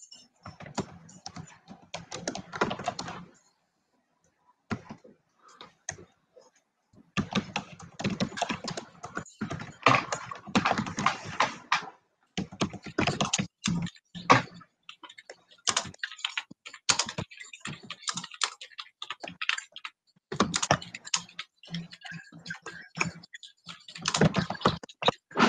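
Typing on a computer keyboard in bursts of rapid key clicks, broken by short pauses.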